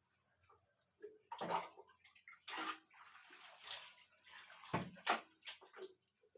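Water being poured and splashing over shampooed long hair during a hair wash, in several short irregular bursts.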